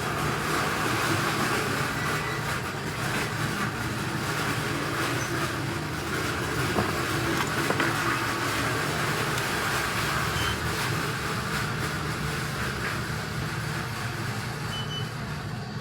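Steady blowing noise of a hot-air rework station running continuously while a small inductor is desoldered and replaced on the phone's logic board.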